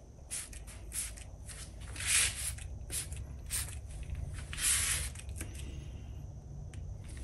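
Spray bottle misting liquid onto a tile in a few light sprays: several short hisses, with two longer, louder ones about two seconds and four and a half seconds in.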